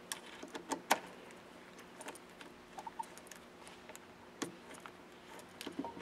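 Small metal clicks and ticks of a Phillips screwdriver engaging and turning a small screw into the plastic cam assembly of a linear actuator, with a couple of sharper clicks among them.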